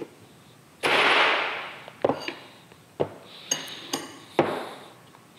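A steel Woodruff key being driven into its keyseat in a shaft with a brass bar. A heavy blow lands about a second in, followed by about six sharper, ringing metallic taps.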